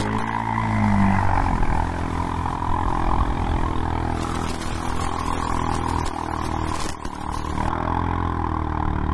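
ATV engine running as the quad rides down a trail, its pitch rising and falling with the throttle in the first second or so and climbing again near the end, steady in between.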